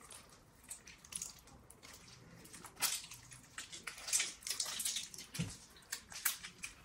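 Half a lemon squeezed by hand over raw lamb shanks: a run of short wet squelches and crackles, with juice dripping onto the meat.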